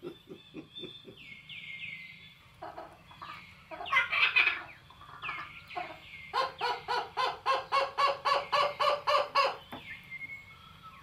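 Bird-like animal calls: several short, high, falling chirps, then a rapid rhythmic run of clucking calls, about three or four a second, lasting roughly three seconds past the middle.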